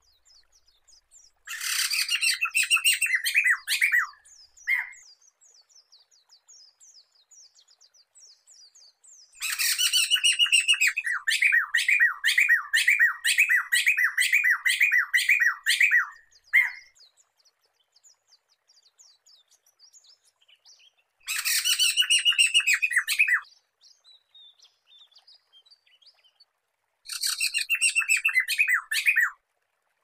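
Poksay mantel (black-throated laughingthrush) singing in four loud bouts of rapid repeated notes, the longest lasting about seven seconds, with faint chirps in the pauses between bouts.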